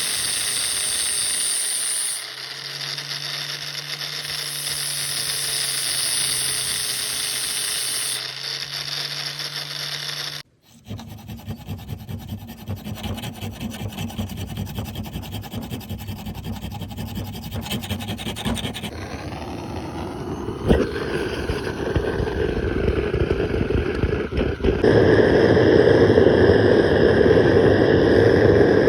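Metalworking on a steel knife blank in several cut-together clips: a power tool's motor running steadily at first, then after a sudden cut, rough rasping and scraping of metal being worked, growing louder near the end.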